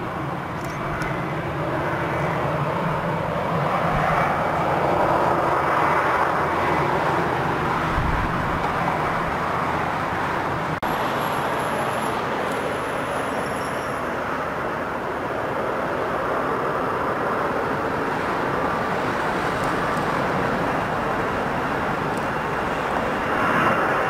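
Airbus A320-200 jet engines running as the airliner taxis and lines up on the runway, a steady jet noise mixed with wind on the microphone, swelling briefly near the end.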